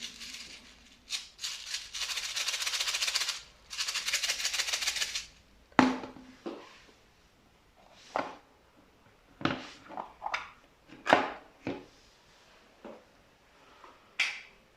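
Small pearl beads poured onto slime in two rattling streams of many tiny clicks, followed by the slime being pressed, with a handful of short, sharp pops and squelches.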